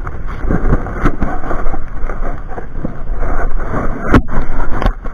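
Rough rumbling and rustling on a body-worn camera's microphone as a climber moves up a steel lattice tower through cable bundles, with wind buffeting mixed in. Sharp knocks of hands and gear on the steel about a second in and twice near the end.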